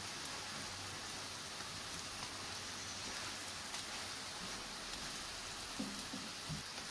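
Oil sizzling under a paratha shallow-frying in a nonstick pan: a steady hiss with faint scattered crackles.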